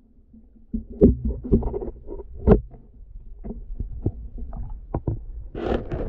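Muffled knocks and thumps, a dozen or so, over a low rumble of moving water, with a rush of water noise near the end. This is the sound of a spearfisher moving through a flooded cave, picked up underwater by a waterproof camera.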